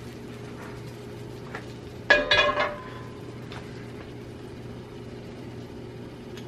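A few quick metallic clanks with a short ring about two seconds in, as a nonstick frying pan is set down on the stove. A steady low hum continues underneath.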